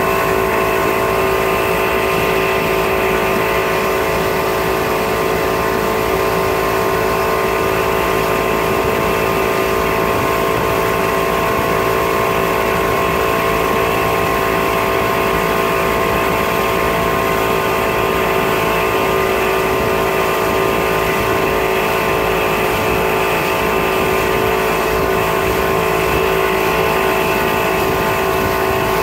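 Outboard motor running steadily at constant throttle, heard close from the stern, over the rush of churning wake water.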